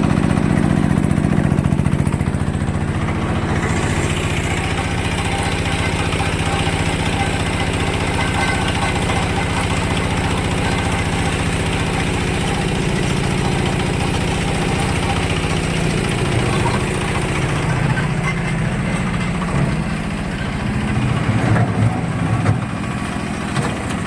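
An engine running steadily, its note shifting about three seconds in and becoming uneven near the end.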